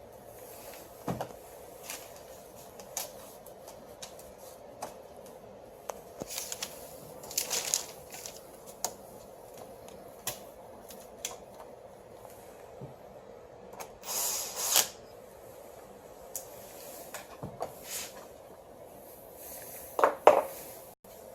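Irregular clicks, knocks and short rustles of hands handling and fitting copier fuser-unit parts, over a faint steady hum, with a louder double knock near the end.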